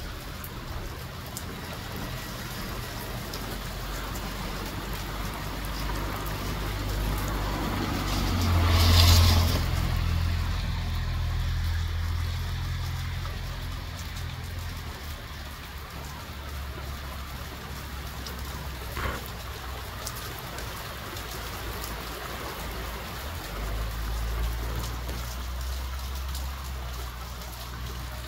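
Gusty wind rumbling on the microphone over the hiss of a rain shower, with a louder rushing swell that builds and fades about eight to ten seconds in.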